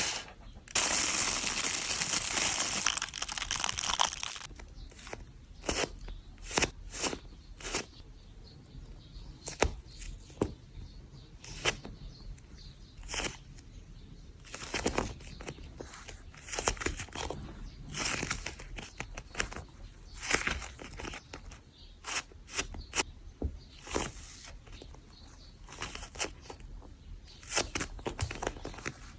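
A yellow cube squishy toy being squeezed and pressed by hand, giving short crinkly, crackling squishes every half second to a second. It opens with about four seconds of continuous crinkling.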